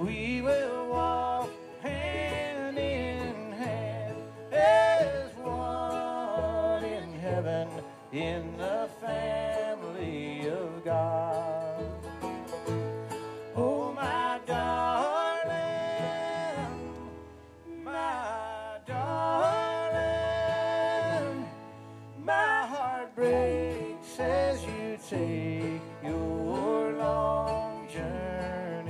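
Bluegrass band playing live on acoustic guitar, mandolin and upright bass, with a wavering melodic lead line over a steady bass and strummed rhythm, briefly dropping back about two-thirds of the way through.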